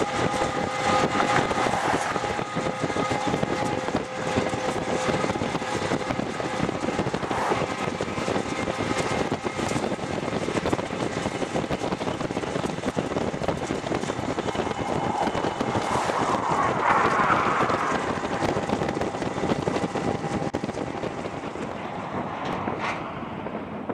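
Steady rush of road and wind noise from a vehicle pacing a freight train, mixed with the running of the Union Pacific diesel locomotives alongside. The noise eases off near the end.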